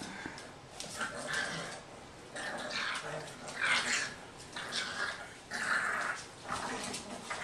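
An English Bulldog puppy and a Yorkshire Terrier vocalizing at each other in play, with short dog calls about once a second.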